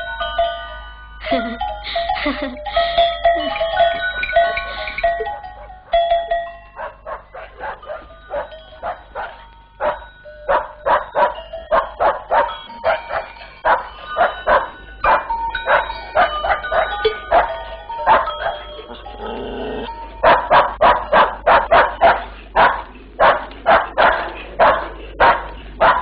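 A few seconds of melodic film music, then a dog barking over and over, about two to three barks a second, for the rest of the time.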